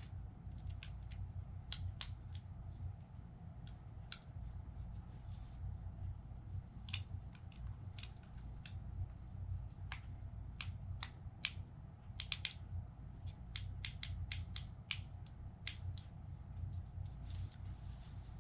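Irregular small clicks and taps of the plastic casing and parts of a drone remote controller being handled and fitted together during reassembly, over a low steady hum.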